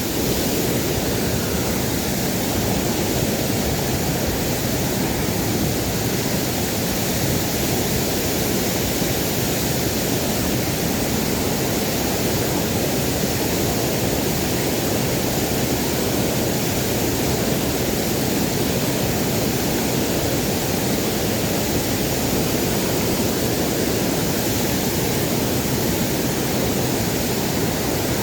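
A waterfall's falling water rushing steadily, an even, unbroken noise.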